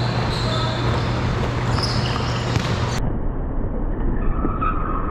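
Basketball game noise in a large gym: sneakers squeaking on the court floor and a ball bouncing over a steady hum. About three seconds in the hum stops and the sound turns muffled.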